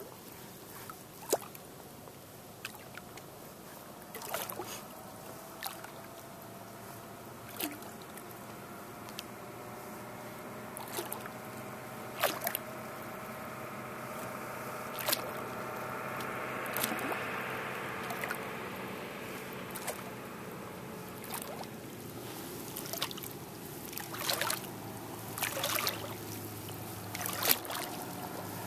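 Small pontoon boat moving on a lake: water lapping and splashing against the tubes and oars, with irregular sharp splashes and knocks every second or two. A distant engine drone swells and fades through the middle.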